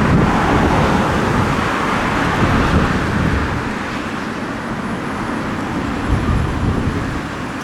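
Military jet engine noise from a departing fighter or trainer, fading over the first four seconds, with strong wind buffeting the microphone.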